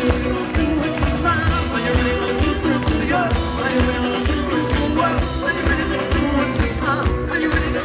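A live rock band playing a song: a male lead vocal over electric guitar and drums, with a steady drum beat.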